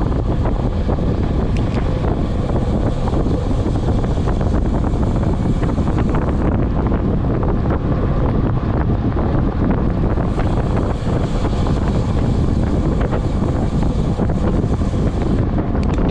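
Loud, steady wind noise buffeting the microphone at high speed on a fast downhill bike descent.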